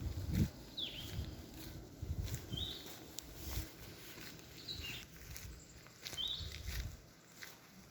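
A small animal's high chirp call repeating about every one and a half to two seconds, five times, over soft footsteps on the ground.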